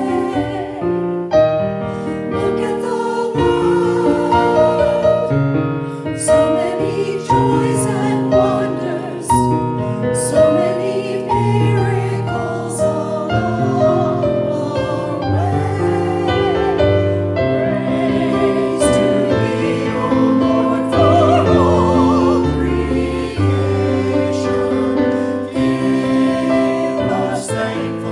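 Small mixed church choir singing with piano accompaniment.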